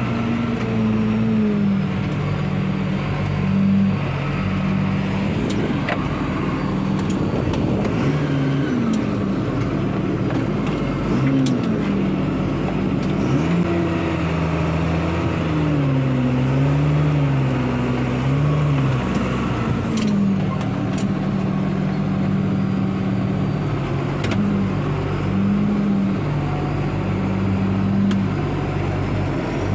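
McCormick MTX 200 tractor's engine running, heard from inside the cab, its note steady at first, rising and wavering in the middle, then settling back.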